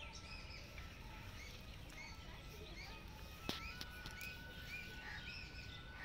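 Small birds chirping in many short, repeated calls over a steady low background rumble, with a single sharp click about three and a half seconds in.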